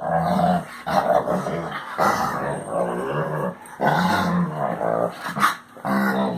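Basset Hound vocalizing: a string of drawn-out, pitched grumbling noises that bend up and down in pitch, in about five runs with short breaks between them.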